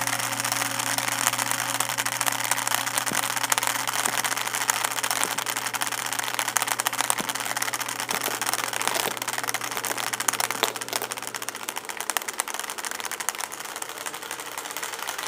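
Long rows of iPhones toppling like dominoes: a fast, continuous clatter of small hard clicks as each phone knocks over the next. A low steady hum runs underneath and stops about twelve seconds in.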